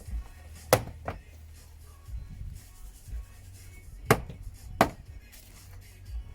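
Plastic door-card retaining clips snapping out of a car's rear door as the trim panel is pried off: four sharp snaps, two close together about a second in and two more about four and five seconds in.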